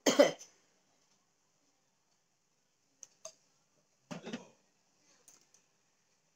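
A person taking a tablet with water: a short vocal sound at the start, two small clicks about three seconds in, then a gulp about four seconds in.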